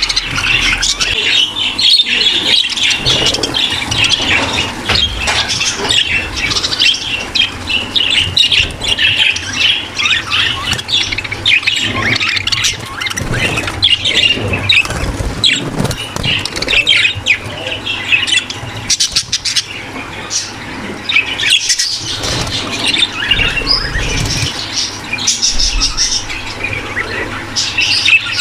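A flock of budgerigars in a breeding aviary chattering, warbling and chirping continuously, many birds at once; this is the breeding-room chatter that sets pet budgies into breeding condition.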